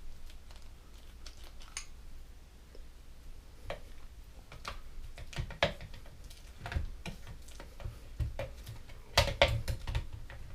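Irregular clicks and knocks of a utensil against a blender container while frozen sorbet is being scooped out, with a cluster of louder knocks near the end.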